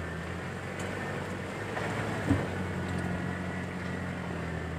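Toyota LN106 Hilux pickup's diesel engine running steadily while driving, a low even hum, with a single short knock a little past halfway.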